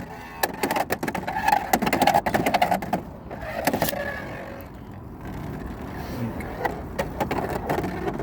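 Roar Tyranno Beyblade X spinning top launched into a stadium: rapid clattering clicks for the first three seconds or so, then a quieter, steady whir as it keeps spinning.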